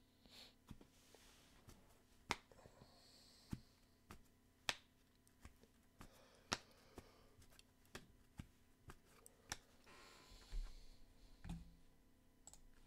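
Near silence broken by faint, scattered clicks, roughly one a second, with a soft rustle a little after ten seconds in.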